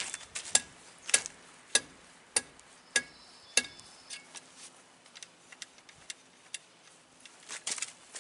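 A run of about six sharp, evenly spaced clicks with a faint metallic ring, a little more than one a second. They are followed by scattered lighter clicks and a quick cluster of clicks near the end.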